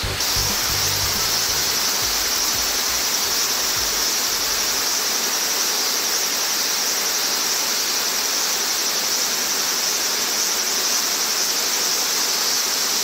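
Steady outdoor ambience of rushing stream water, with a constant high-pitched cicada drone over it.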